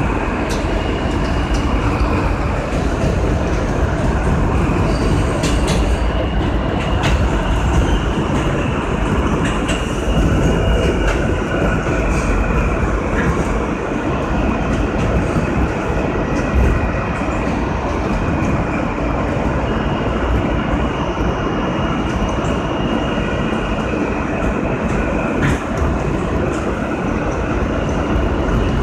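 R160A subway train running at speed: a steady rumble of wheels on rail, with a faint high steady whine and scattered sharp clicks.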